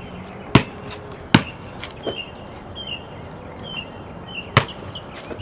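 Three sharp thumps, two close together in the first second and a half and one near the end, over a small bird chirping over and over.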